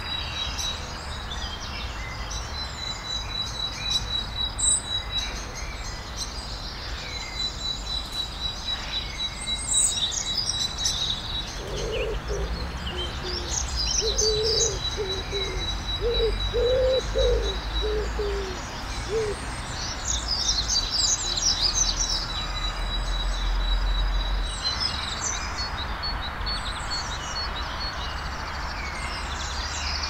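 Garden songbirds chirping and singing in short high phrases, over a thin, high, rapidly pulsed note held for long stretches. About twelve seconds in, a low cooing phrase of several notes runs for about seven seconds.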